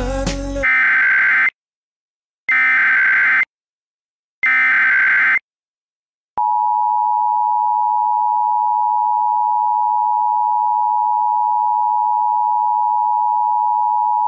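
Emergency Alert System activation: three SAME digital header bursts, each about a second long with a second's gap between them. A moment later the two-tone EAS attention signal (853 and 960 Hz together) comes on and holds steady for about eight seconds.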